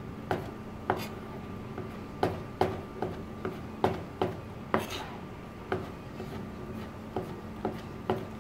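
Chef's knife slicing raw tuna on a plastic cutting board: about a dozen knocks as the blade meets the board, unevenly spaced about every half second.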